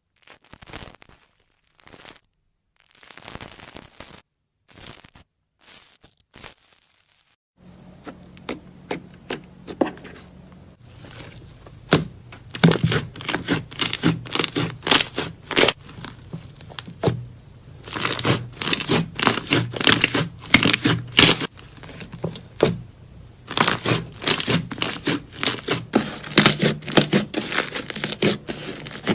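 Slime being squeezed and stretched by hand, crackling and popping in rapid sharp clicks. Short scattered bursts for the first few seconds, then denser and louder runs of crackling from about 8 seconds in.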